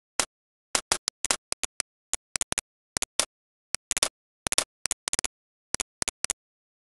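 Computer mouse buttons clicking: about two dozen short, sharp clicks at an irregular pace, some in quick pairs, with dead silence between them.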